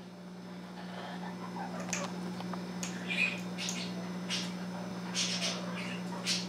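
Congo African grey parrot making a series of irregular sharp clicks with a few short soft chirps, over a steady low hum.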